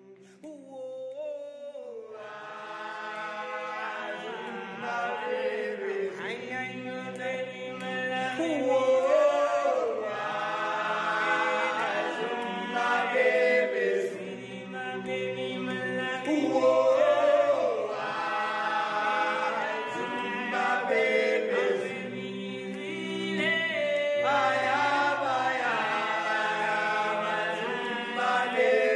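Choral singing: a group of voices singing in harmony, fading in over the first couple of seconds after a brief silence.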